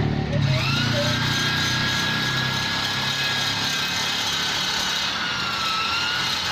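Rotary grinder with a carbide burr grinding metal to reshape the ports of a Vespa cylinder: a steady high whine over a grinding hiss, starting about half a second in, with the pitch sagging a little under load near the end.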